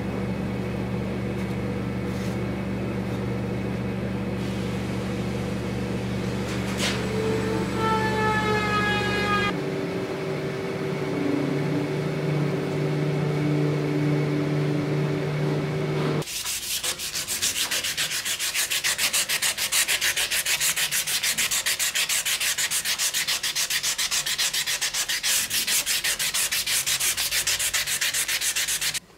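For the first half, a steady machine hum with a falling whine at about 8 to 9 seconds. From about 16 seconds, abrasive paper is rubbed by hand along a forged sword blade in quick, even back-and-forth strokes.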